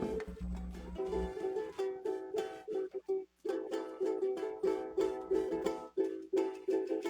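Acoustic guitar strummed in a steady repeating chord pattern, with a short break about three seconds in. A low hum under the strumming stops about a second in.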